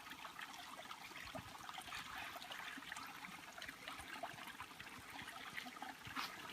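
Shallow creek trickling and splashing over rocks, faint and steady, with small scattered ticks through it.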